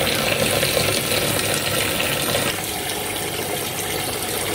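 Tap water running steadily into a basin of vegetables being washed, a little quieter from about halfway.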